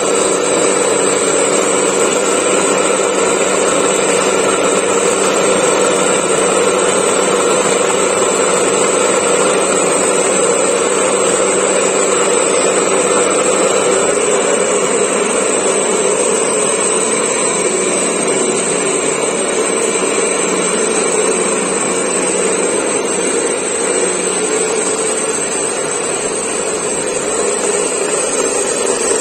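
Mini stone grinder flour mill running, its 2.2 kW single-phase electric motor turning the grinding stone as wheat is milled into flour: a steady hum and whir.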